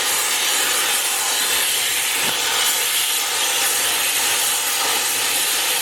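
A steady, loud hissing, rasping noise that holds even throughout, with no separate hammer blows standing out.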